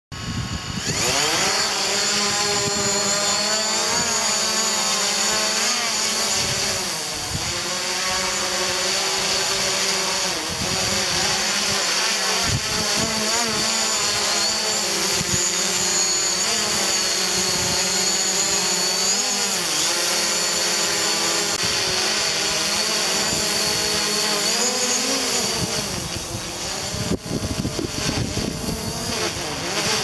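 DJI Mavic Pro quadcopter's propellers spinning up and taking off, then its motors whining steadily in flight, the pitch wavering up and down as the drone changes speed.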